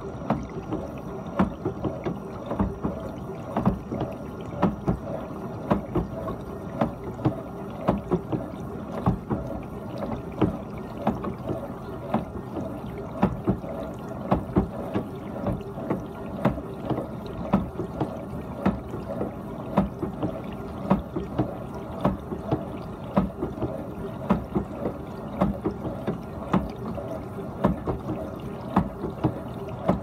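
GE dishwasher running its cycle: a steady muffled rush of water spraying and sloshing inside the closed tub, broken by frequent irregular splashes and knocks, one or two a second.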